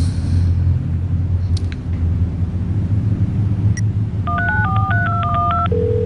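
A mobile phone keypad dialing a number: a quick run of about ten dual-tone beeps, followed near the end by a steady single phone tone as the call connects.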